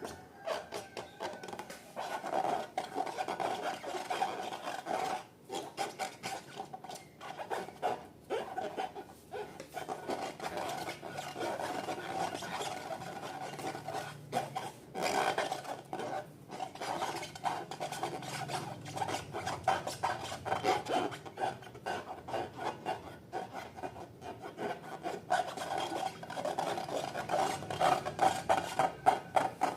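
Slime being mixed and worked by hand or with a tool, a continuous rubbing and rasping made of many quick strokes, with a few short pauses.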